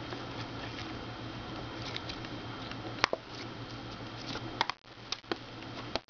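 Small clicks and taps of a computer keyboard's keys and plastic as cleaning putty is pressed into its cracks, over a steady low hum. A few sharper clicks come in the second half.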